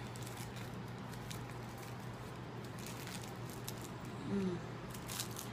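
Light crinkling and clicking of plastic-wrapped candies being handled, over a faint steady low hum. A short hummed voice sound comes about four seconds in.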